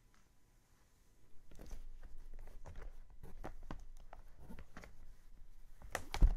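Irregular soft clicks, taps and rustles of someone handling things close by, starting about a second in, with one sharper knock near the end.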